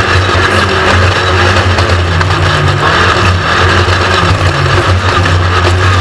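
Off-road race buggy engine running hard with a steady low drone, its pitch rising and falling with the throttle, under a loud steady rushing noise.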